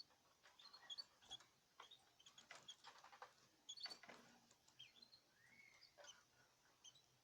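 Small cage birds giving faint short chirps and calls, with scattered light clicks and scratches of movement in the cage.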